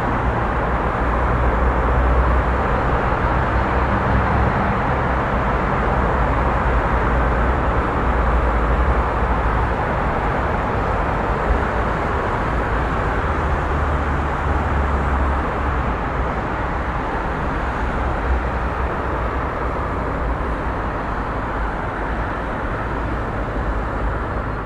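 Steady vehicle noise with a deep rumble underneath.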